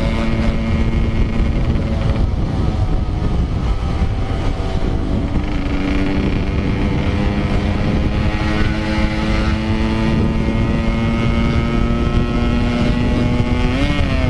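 Yamaha RX-King 135cc two-stroke motorcycle engine running at a steady cruising pitch while riding. The pitch drops slightly twice and rises briefly near the end. Heavy wind and road rumble sit on the helmet or bike camera microphone.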